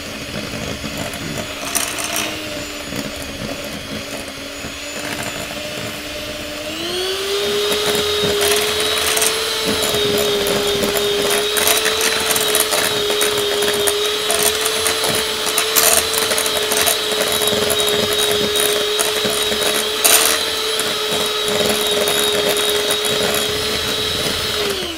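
Corded electric hand mixer running its beaters through butter and eggs for cookie dough: a steady motor whine that rises to a higher pitch about seven seconds in and holds there, with scattered clicks.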